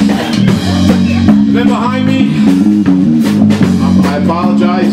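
Live rock band playing: electric guitar riff over a drum kit, with repeated low notes and steady drum hits.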